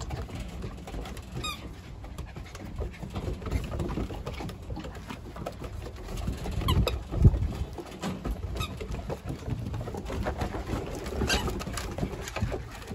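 German Shepherd–Husky mix puppies playing on a wooden deck: paws and claws pattering and scrabbling on the boards, with a few short squeaky yips. A low thump about seven seconds in.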